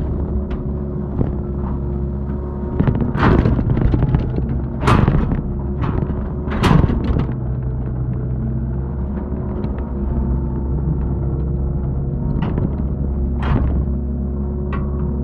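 Excavator's diesel engine running steadily under load while digging soil, with several loud, sharp knocks and clanks from the bucket and arm working the ground.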